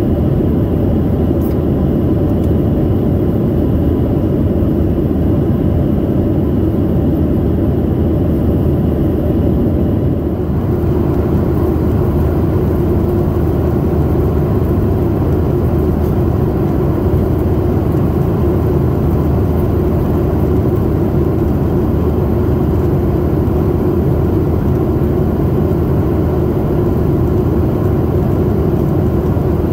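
Steady cabin noise of a Boeing 737-800 in flight, heard inside the cabin from a window seat: the CFM56 engines' hum and the rush of air over the fuselage. The tone shifts slightly about ten seconds in.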